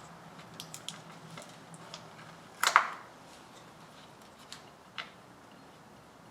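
Light clicks and taps of hand tools and ignition parts being handled, with one louder, brief clatter about two and a half seconds in.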